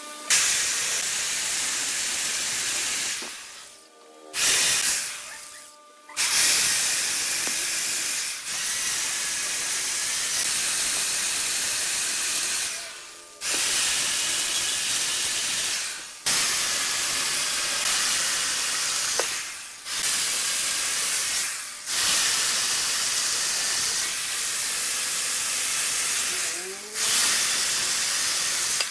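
Chainsaw cutting into the end of a large wooden turning blank: a steady, loud hissing rasp of the chain through wood that stops abruptly and starts again several times.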